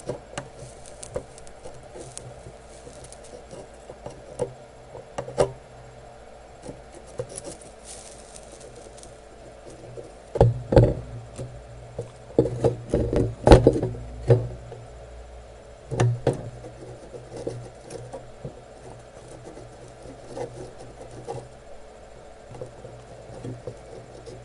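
Scattered clicks and knocks of tools and small objects being handled on a workbench, with a run of louder knocks in the middle, over a low steady hum.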